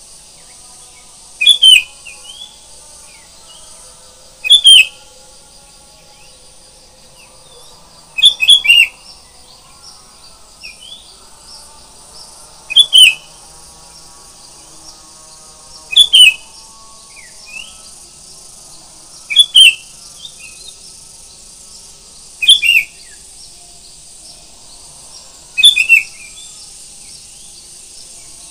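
Sooty-headed bulbul (kutilang) singing loud, short phrases about every three seconds, with a few softer notes in between.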